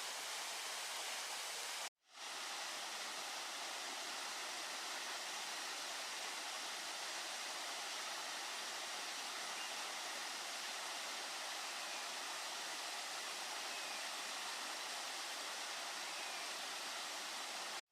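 Steady rushing of a waterfall of three falls, each about 10 m, dropping side by side. The sound cuts out for an instant about two seconds in, then resumes unchanged.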